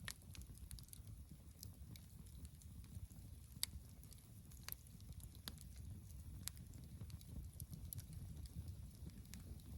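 Campfire of split firewood burning, with sparse, irregular crackles and pops over a faint low rumble.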